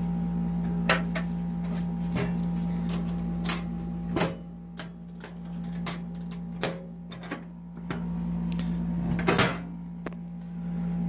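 Irregular sharp clicks and knocks from handling the Ridgid drain gun's red carrying case and its latch, about a dozen over the stretch, the loudest near the start, in the middle and near the end. A steady low hum runs underneath.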